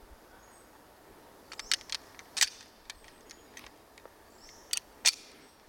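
A few sharp, brief metallic clicks and taps from a stainless Walther PPK/S .380 pistol being handled, over a faint outdoor background.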